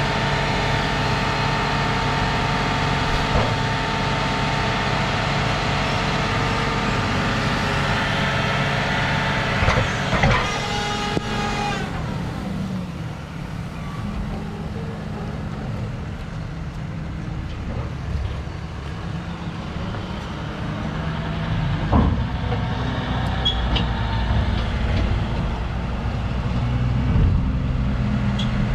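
John Deere tractor engine running under hydraulic load while a high-tip silage trailer lifts and tips a load of chopped maize; the higher engine note falls away about 12 seconds in, leaving a lower steady running. A short sharp knock sounds about two-thirds of the way through.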